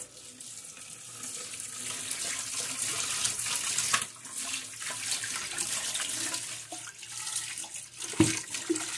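Kitchen tap running and splashing over a metal pot being rinsed by hand in a stainless-steel sink, a steady rushing with a brief drop about four seconds in.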